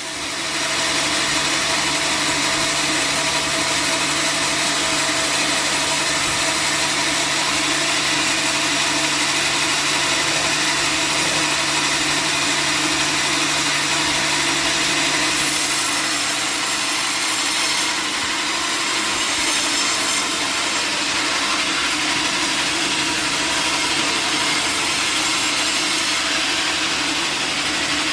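Powered sawmill saw running steadily as it cuts through a log, getting louder within the first second.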